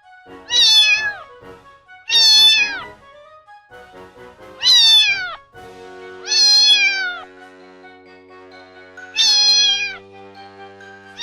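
A cat meowing five times, each meow under a second long and falling in pitch at its end, over soft background music.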